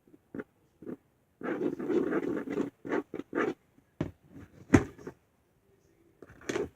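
Glue-and-laundry-detergent slime being stirred and mixed, irregular wet squelching and scraping as it starts coming together, with a sharp knock about four and a half seconds in.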